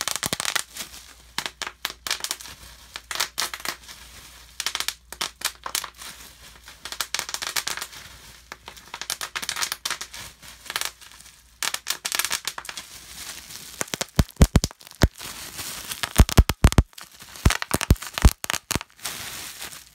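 Bubble wrap being squeezed and crumpled in the hands right against the microphone, a dense irregular crackling and crinkling. Louder low thumps come in a run during the last six seconds or so.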